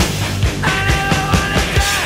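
Background music with a fast drum beat under held pitched notes; right at the end the drums drop out and the held notes ring on.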